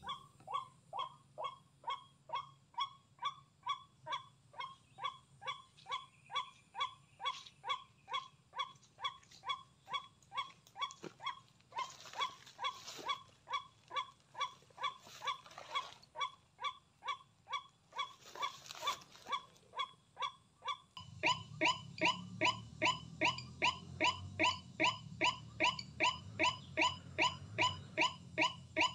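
White-breasted waterhen call played as a lure, a harsh 'kru-ak' repeated evenly about twice a second. It grows louder about two-thirds of the way through.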